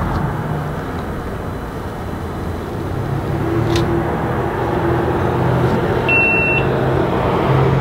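Steady low rumble with a hum, and one short, high beep about six seconds in.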